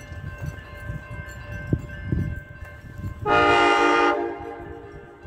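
Amtrak locomotive's air horn sounding one blast of about a second, a chord of several notes, a little past halfway through, over a low rumble.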